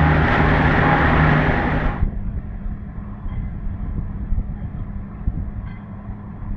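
RIB under way: engine drone under a loud rushing of wind and water. About two seconds in the rushing cuts off abruptly, leaving a quieter steady low hum with irregular knocks.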